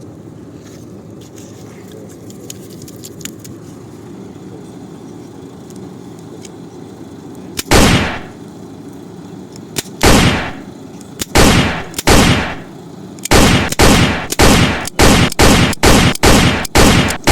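Toy gun firing about a dozen shots, each a sharp crack trailing off in a falling swish. The first few come a second or two apart, then they speed up to about two a second near the end. Before the shots there is only a steady low hum.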